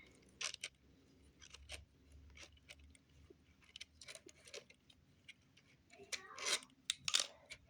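Faint, irregular clicks and scrapes of a small screw being worked out of a remote-control car's plastic parts by hand, with a louder cluster of scraping and clicking about six and a half seconds in.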